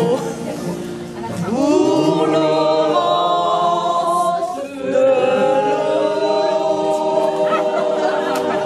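A group of people singing together without accompaniment, holding long notes.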